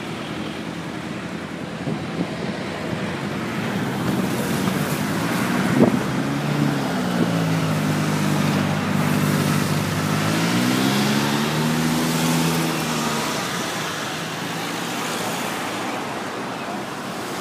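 Road traffic noise, with one vehicle's engine hum standing out for several seconds in the middle, its pitch dipping and then rising again before it fades.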